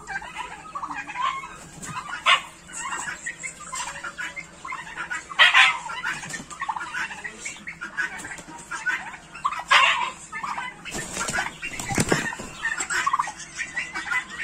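Domestic turkeys and chickens calling in a poultry yard: a run of short clucks and gobble-like calls, with louder calls about two, five and a half and ten seconds in. A brief low rumble comes about twelve seconds in.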